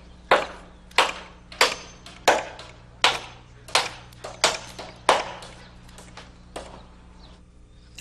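Steel framing hammer driving 10-centimetre nails through a wooden ridge board into the rafters: about nine sharp, ringing blows, roughly one every 0.7 seconds, with a short pause before the last one.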